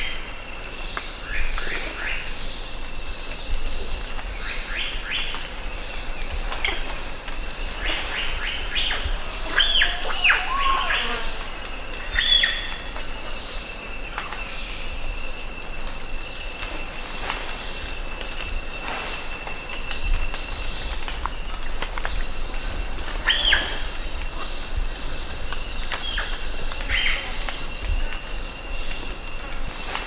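Tropical rainforest ambience dominated by a steady, high-pitched cicada drone, with a fainter steady insect tone below it. Short falling calls break through now and then, most thickly around ten seconds in and again near the end.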